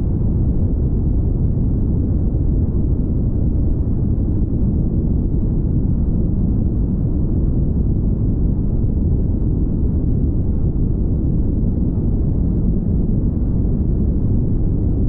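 Steady, loud low rumble of a car driving on the highway: wind noise on the microphone mixed with road and tyre noise.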